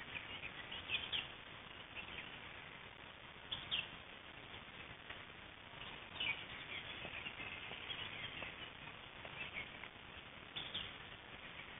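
Birds chirping in short scattered bursts every few seconds over a faint steady outdoor background.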